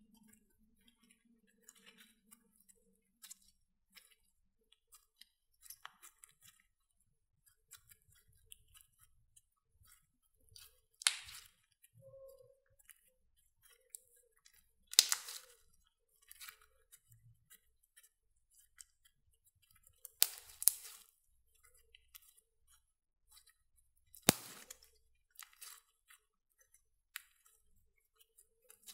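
Hands squishing and stretching foam-bead slime: a steady run of small sticky clicks and crackles, with four louder crackling pops spread through.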